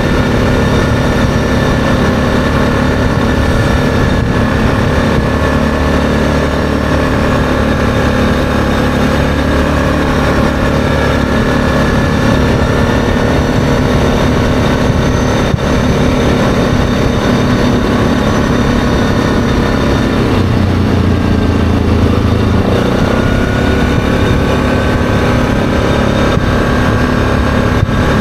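ATV engine running steadily at cruising speed on a paved road. Its note drops for a couple of seconds about two-thirds of the way through, then rises again.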